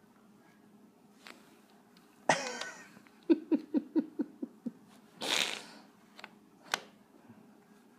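A cat hisses in two short, sharp bursts, about two seconds in and again a little after five seconds. Between them a person laughs in a quick run of short 'ha' sounds that fade out.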